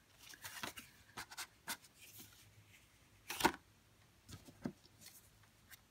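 Cardstock die cuts being handled and shifted by hand: light paper rustling and small taps, with one sharper paper snap about three and a half seconds in.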